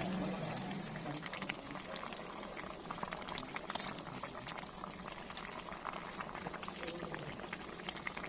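Pot of mung bean stew bubbling as it boils, with many small irregular pops.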